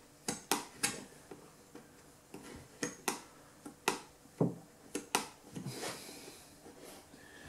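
Metal putty knife tapping and scraping in a timber window's glazing rebate as glazing compound is pressed in: a string of sharp, irregular clicks.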